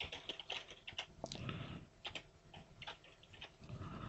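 Faint computer keyboard keystrokes, typed in quick irregular clicks.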